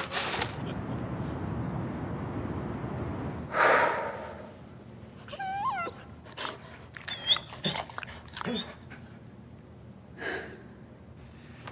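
A paper bag crinkles steadily as a man breathes hard into it. Then a dog whimpers in several short, high, wavering whines.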